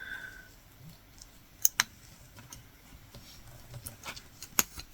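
Small sharp clicks and light ticks of a metal latch hook tool pulling yarn through rug canvas, with two clicks close together a little under two seconds in and a sharper one near the end.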